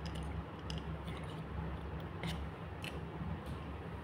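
A handful of soft, scattered clicks from the plastic parts of an Optimus Prime action figure being moved and folded during its transformation to vehicle mode.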